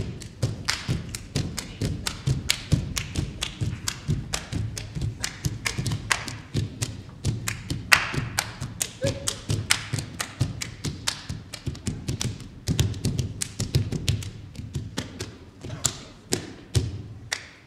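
Fast percussion: dense sharp taps over low thumps in a quick rhythm, stopping shortly before the end.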